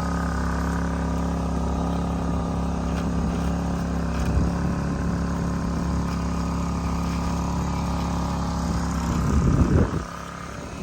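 Steady drone of a small engine running, holding an even pitch, which wavers about nine seconds in and then drops away sharply.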